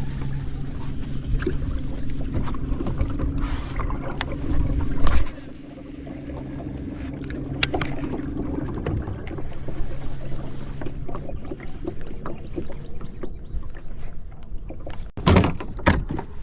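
A steady low mechanical hum that stops abruptly about five seconds in, leaving a quieter outdoor background. Near the end come a few loud knocks and thumps.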